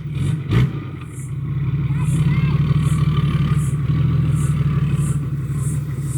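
BMW E36's engine running steadily at low revs, with a single knock about half a second in.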